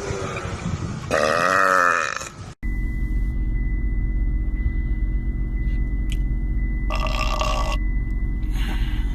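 A man burping, a long belch with a wavering pitch lasting about a second and a half. After a sudden cut comes a steady low rumble with a thin steady tone above it, and a second, shorter burp about seven seconds in.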